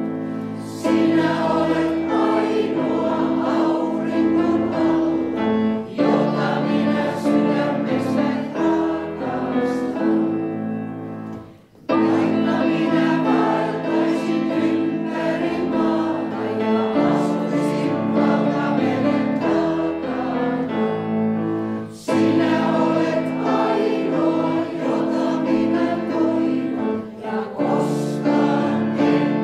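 Senior choir singing a Finnish folk song together with instrumental accompaniment, in phrases of about six seconds each, with a short break just before the middle.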